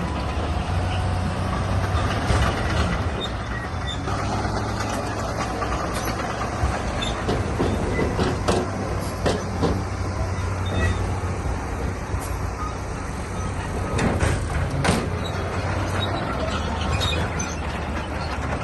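Heavy diesel engine of earthmoving machinery running steadily under load, with scattered sharp clanks and knocks of metal and rock, a few of them bunched together near the end.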